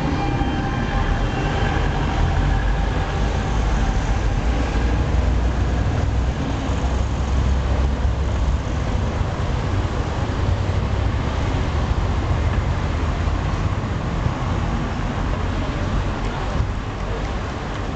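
City street traffic: cars, vans, a bus and a motorcycle driving past, a steady rumble of engines and tyres.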